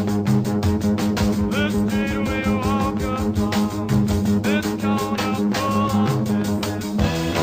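Rock song: a voice singing over a quick steady beat, guitar and a held low note.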